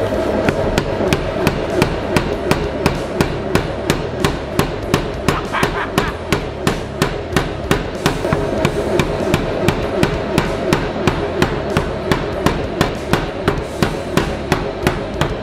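Chambersburg 300 lb power hammer running, its ram striking in a steady rhythm of about three blows a second.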